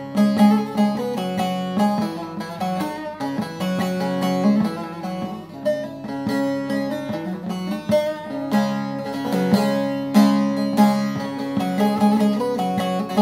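Bağlama (saz) played solo: a fast run of plucked melody notes over steadily ringing lower strings, an instrumental interlude with no singing.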